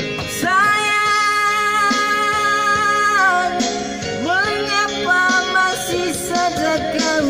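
A voice singing with guitar accompaniment, holding one long note for about three seconds, then going on into a shorter phrase.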